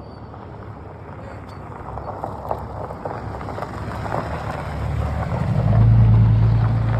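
A large engine drawing near, its low steady drone growing louder and at its loudest about six seconds in, with wind on the microphone.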